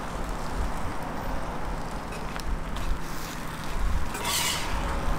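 A metal spatula scraping once across a round crepe griddle about four seconds in, over a steady low background rumble.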